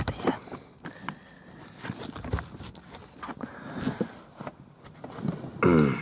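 Gloved hand handling wiring and plastic trim under a car seat: scattered clicks, taps and rustles at irregular intervals.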